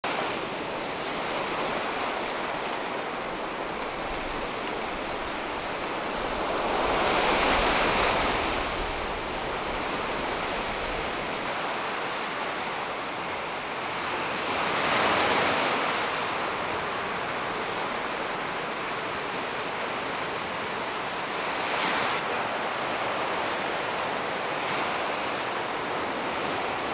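Sea surf: a steady rush of waves washing onto the beach, with two louder breakers swelling up and falling away about seven and fifteen seconds in.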